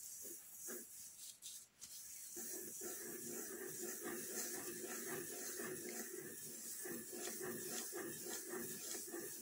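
Pencil sketching on paper clipped to a clipboard: quick, repeated scratching strokes of the lead, starting about two seconds in, after a few scattered faint strokes.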